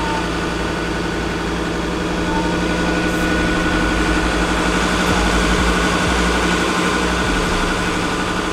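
4WD ute's engine running at a steady, even pitch while driving on sand, heard from out of the open window, with wind rumbling on the microphone.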